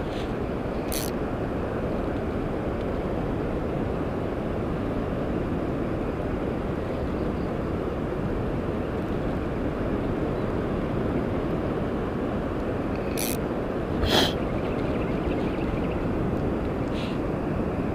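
Steady low rumble of wind buffeting the microphone, with a few brief clicks, the loudest about fourteen seconds in.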